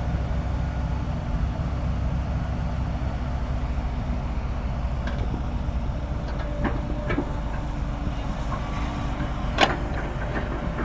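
Heavy diesel engines of an excavator and a dump truck running steadily while soil is loaded. There are a few light knocks, and one sharper knock comes near the end.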